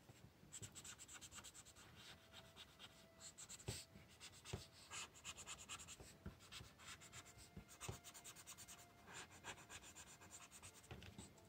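Faint scratching of a drawing tool on paper in quick, repeated shading strokes.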